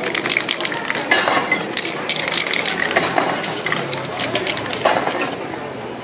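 Aerosol spray-paint cans clinking and rattling in quick, irregular clicks, over a crowd's murmur.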